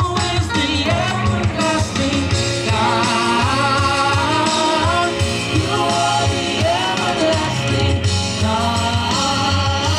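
Live gospel worship music: a band playing under a singer's voice, which glides and bends through long held notes.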